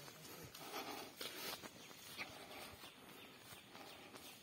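Faint footsteps on grass and rustling of leaves and branches as people walk through the trees, with a single short high chirp about two seconds in.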